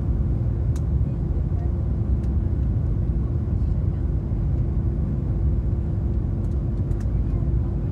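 Airliner cabin noise: a steady drone of the engines and airflow, heaviest in the low end, with a constant hum running through it and a few faint clicks.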